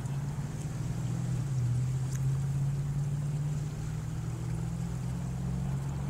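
Steady low engine hum, its pitch shifting slightly about a second and a half in.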